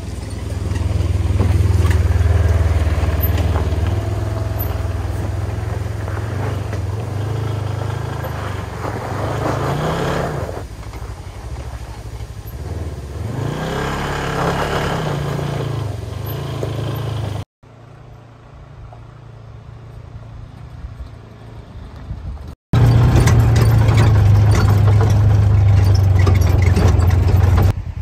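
Polaris side-by-side UTV engine running as it drives over a rocky gravel trail, its pitch rising and falling with the throttle. The sound breaks off abruptly twice, and the last stretch is louder and steadier.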